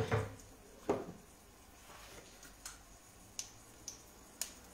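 Two light knocks, then a handful of faint, scattered clicks, in a quiet kitchen.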